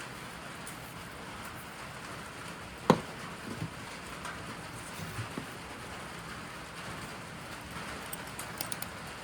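Steady rain falling, with one sharp knock about three seconds in and a few softer knocks after it.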